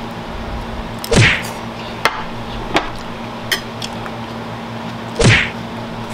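Two quick whooshes about four seconds apart, each a fast sweep falling from high to low pitch. A few light clicks fall between them, over a steady low hum.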